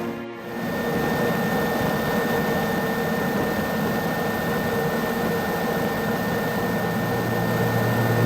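Super Puma helicopter running: a steady rushing turbine noise with a constant high whine, dipping briefly just after the start.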